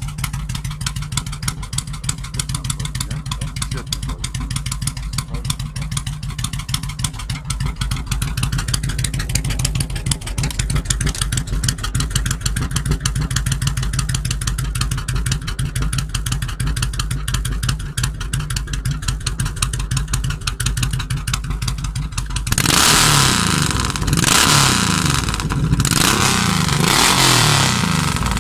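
Suzuki Intruder 1500 LC's V-twin engine idling with a steady, rapid exhaust beat through chrome pipes, then revved in about three throttle blips near the end, each louder with rising and falling pitch.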